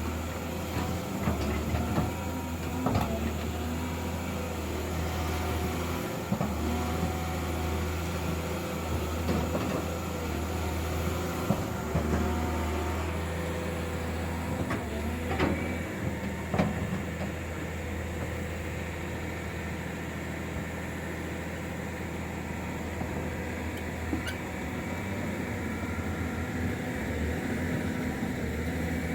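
Diesel engine of heavy earthmoving equipment running steadily at a low drone, with scattered knocks and clanks of work on soil and timber.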